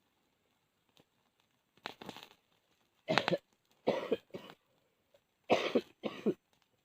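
A person coughing: a weak cough about two seconds in, then four loud coughs in two pairs.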